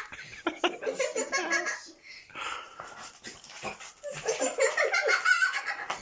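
A pet dog vocalising excitedly as she plays wildly, with short scuffling and clicking noises throughout; human laughter joins in, louder from about four seconds in.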